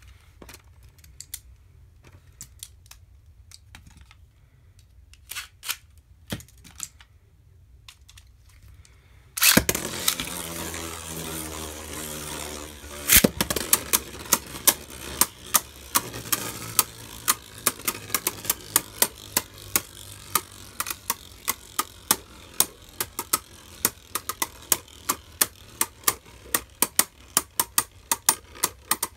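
Ark Bahamut and Maximum Garuda Beyblade Burst tops in a clear plastic stadium: a few scattered clicks, then the tops are launched about a third of the way in with a sudden loud whirr of spinning. They then clash over and over, sharp clacks coming about two to three a second over the spinning noise.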